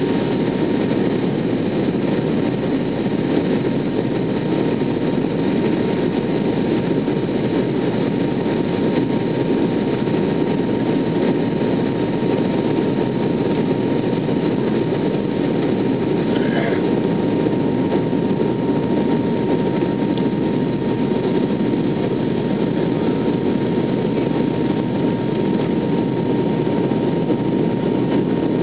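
Airliner cabin noise during the descent to landing: a steady rush of engine and airflow with a thin constant whine above it.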